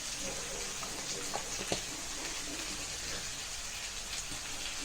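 Potatoes and peas frying in hot oil in a kadai, a steady sizzle, with a couple of light clicks about a second and a half in.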